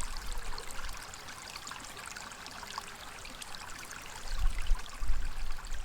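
Shallow water trickling and lapping, a steady fine splashing, with short low rumbles of wind on the microphone about four seconds in.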